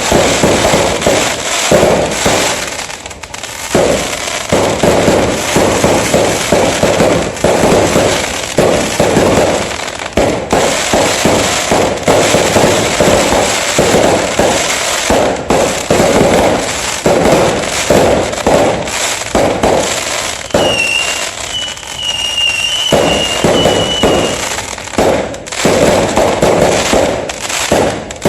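Fireworks going off in a dense, continuous barrage of bangs and crackles. A high whistle runs for a few seconds past the middle.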